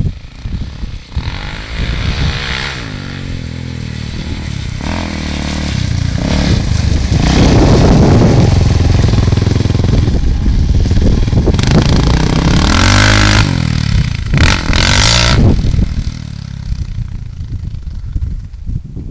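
Quad bike (ATV) engine revving up and easing off as the machine is ridden around, its pitch rising and falling over and over. It grows loud as the quad passes close by, with brief hissing bursts near its loudest, then fades as it moves away near the end.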